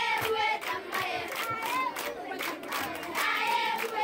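A group of schoolchildren singing a traditional song together, with steady hand clapping keeping time.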